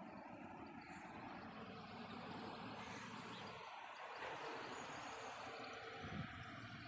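Faint, steady outdoor background noise with a low rumble, and a brief low bump near the end.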